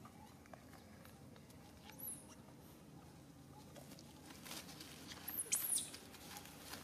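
Monkeys moving through leaves and undergrowth on the forest floor, with a soft rustling that builds a few seconds in. Over it come very high, short squeaks, one about two seconds in and a quick cluster of two or three just past the middle, which are the loudest sounds.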